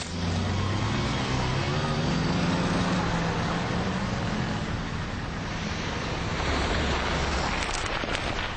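Road traffic: cars driving past with a steady tyre and engine noise, one engine note rising as a vehicle pulls away about a second in. A few short sharp clicks come near the end.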